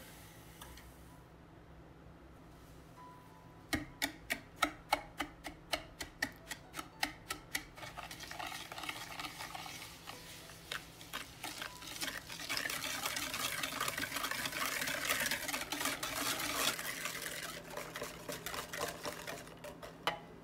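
Wire whisk beating egg yolks and sugar in a glass bowl, its wires clicking against the glass about three to four times a second at first, then faster, denser whisking that thins to a few clicks near the end. The yolks and sugar are being whisked until the batter turns pale.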